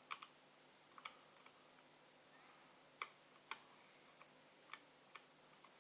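Faint, irregular small clicks and ticks of a fine metal tool picking at a laptop circuit board, over a low steady hum.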